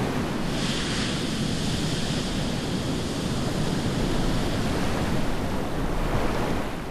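Steady rushing noise of wind and sea over pack ice, swelling in at the start and fading out at the end.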